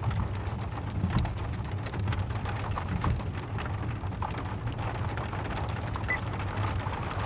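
Heard from inside a van with the engine idling as a steady low hum: scattered ticks and patter of ice pellets and rain on the windshield and roof while the windshield wiper is run again over the hail-covered glass.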